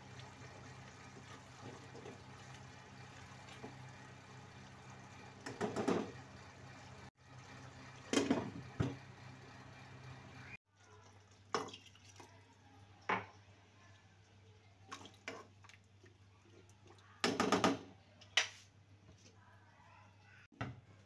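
Beef keema bubbling as it simmers in a pot, over a steady low hum, with a few short louder noises standing out.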